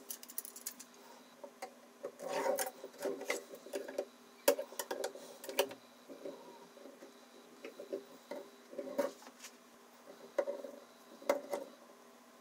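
Clicks, taps and short metal-on-metal scrapes from the parts of a Ruixin Pro RX 008 guided knife sharpener being handled, as the stone-holder arm's rod is slid through the pivot's ball joint and a digital angle gauge is set in place. The sounds come in scattered bursts, with quiet gaps between them.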